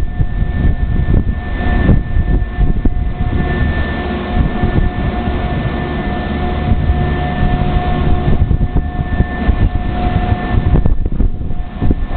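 Train cleaning machine running: a loud, steady roar with a held high whine over it.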